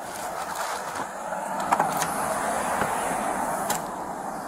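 Steady street and traffic hum with a few sharp clicks and knocks, the last one near the end as the rear liftgate of a Ford police SUV is unlatched and raised.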